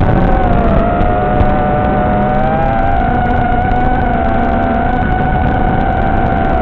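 Electric motor and propeller of an FPV aircraft whining in flight, the pitch rising slightly near the start and wavering with the throttle, over heavy rushing wind noise.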